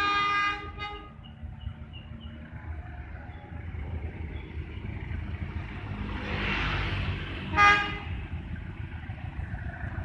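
Diesel locomotive's horn: a blast about half a second long at the start with a brief second toot just after, then one short toot nearly eight seconds in, the loudest moment, over a steady low rumble. A rushing noise swells and fades just before that last toot.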